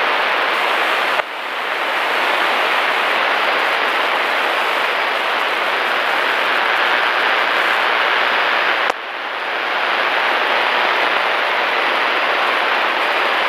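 Steady, loud hiss of Cessna Skyhawk cockpit noise heard through the headset intercom audio, thin and without low end. It drops out briefly twice, about a second in and again near nine seconds, and swells back each time.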